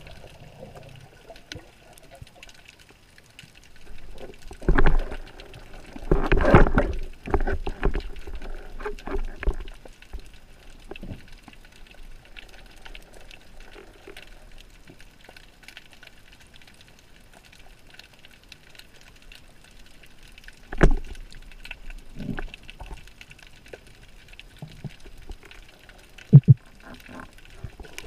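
Muffled underwater noise picked up by a camera in a waterproof housing during a breath-hold spearfishing dive: a low steady wash of water, with louder irregular surges about 5 s and 6–9 s in and again about 21 s in, and a short sharp knock near the end.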